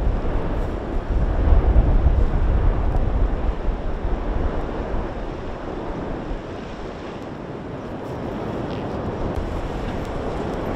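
Wind buffeting the microphone over a steady low rushing roar, with no pitched tones. It is strongest in the first few seconds, eases off about halfway, then builds again near the end.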